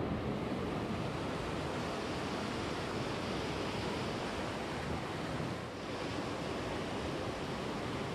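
River water rushing over rocks and small rapids, a steady whooshing rush.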